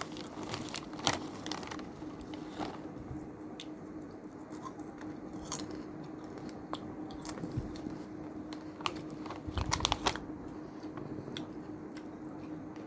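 Close-up mouth sounds of someone chewing a crunchy Mr Twist snack, with irregular crisp crunches and a louder burst of crunching near the end. A faint steady hum sits underneath.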